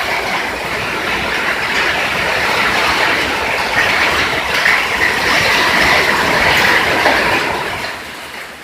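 Heavy rain and wind of a summer storm: a loud, steady rushing noise that dies down near the end.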